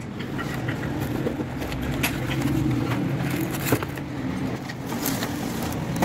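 A cardboard box being opened and its foam packing tray handled: scraping, rustling and a few sharp clicks, over a steady low engine hum.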